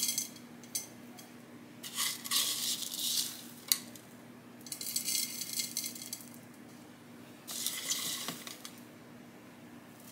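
Gritty cactus potting mix with pumice being scooped and trickled by hand into a terracotta pot, rattling and rustling in four separate pours with a sharp click partway through.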